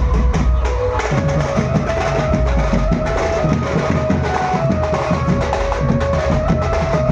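Music with fast, busy drumming and a heavy bass under a melody of long held notes that step up and down.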